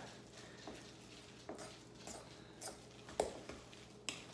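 Fork stirring a wet mackerel patty mixture in a stainless steel mixing bowl: soft, irregular scrapes and taps of the fork against the bowl, the sharpest tap about three seconds in.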